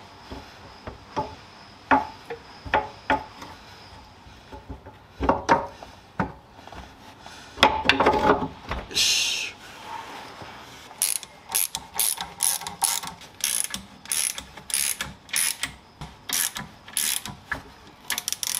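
Ratchet wrench fastening the power plant frame to an RX-7 FD3S rear differential. Scattered metallic knocks come first as the parts are fitted, then a brief hiss about halfway. Past the middle comes a steady run of ratchet clicks, about two a second, as the bolts are run down.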